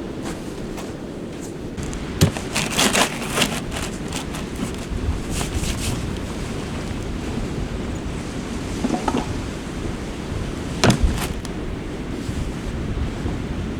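Sea surf washing steadily with wind on the microphone. Sharp clicks and knocks come in a cluster about two seconds in and again as a strong pair later on.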